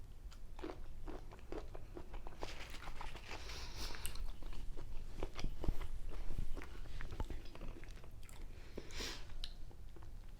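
Close-miked eating: a person biting into and chewing cold cocktail shrimp, with irregular wet smacking and crunching clicks.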